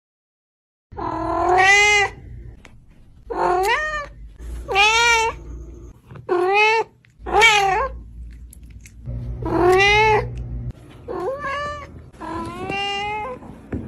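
A cat meowing over and over: about eight loud, drawn-out meows, each rising then falling in pitch, starting about a second in, with one longer call in the middle.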